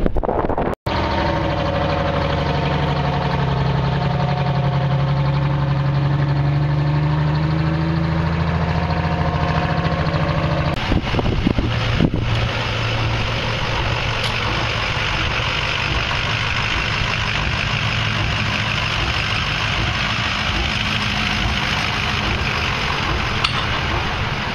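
Large engines running at idle: one engine's note wavers up and down for about ten seconds, then gives way abruptly to a steadier engine sound with a hiss over it.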